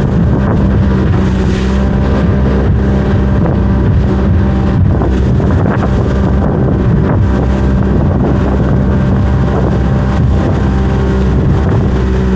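Outboard motor of a small aluminium water-taxi boat running steadily under way, a constant low drone, with wind on the microphone and a few brief knocks.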